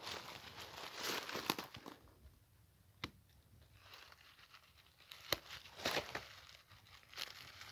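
Dry leaves and dead palm fronds crunching and rustling underfoot and under hand, in short bursts, with one sharp click about three seconds in.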